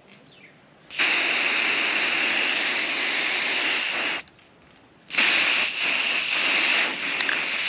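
Aerosol spray-paint can spraying in two long bursts of about three seconds each, with a pause of about a second between them.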